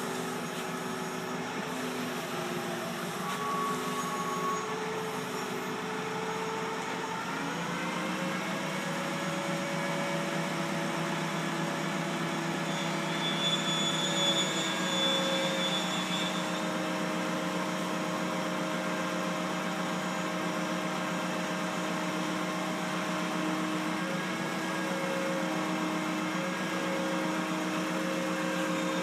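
Forklift motor running with a steady pitched hum that rises in pitch about eight seconds in and then holds higher. A brief high whine comes over it about halfway through.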